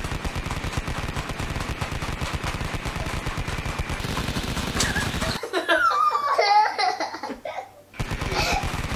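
A fast, even run of sharp clicks, many a second. About five seconds in it breaks off for a couple of seconds of a child's high-pitched giggling, then the clicks start again near the end.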